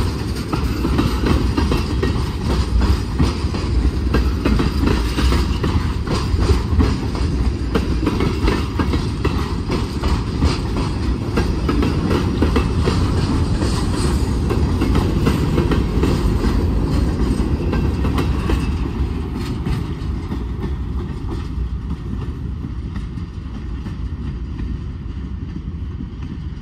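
Freight train of tank cars and covered hoppers rolling past close by: a steady rumble with wheels clicking over the rail joints, easing off after about two-thirds of the way through and fading as the last car moves away.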